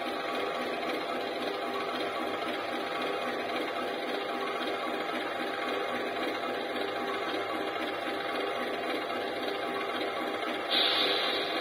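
HO-scale model CC 201 locomotive running, a steady whirring mechanical sound, with a brief louder, higher burst near the end.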